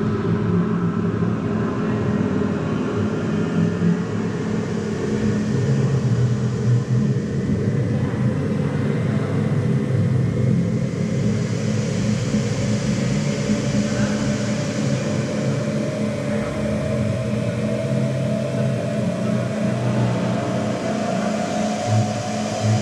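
Steady vehicle engine noise, with one tone rising slowly in pitch throughout.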